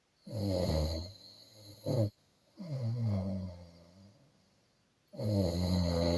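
A person snoring: a loud snore, a short snort about two seconds in, and a longer snore that falls in pitch. After a pause, another loud snore begins near the end.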